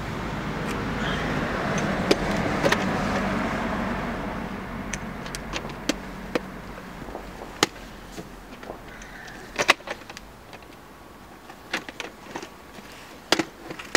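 A rushing noise swells and then fades away over the first several seconds, followed by scattered sharp clicks and taps of plastic VHS cassettes and cases being handled.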